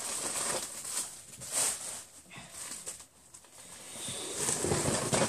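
Plastic packaging bags rustling and crinkling as hands rummage through a cardboard box, with a louder burst of rustling near the end.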